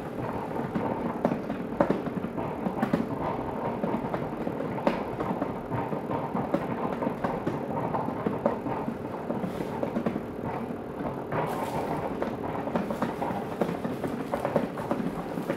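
Upright garment steamer running while its hose steams a shirt, with a steady, irregular crackling rattle.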